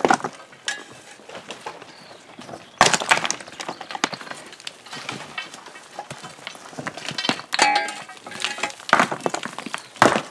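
Hand digging in rocky ground: metal tools scraping and striking stone and loose rocks knocking together, an irregular run of clinks and knocks with a louder crack about three seconds in and more near the end.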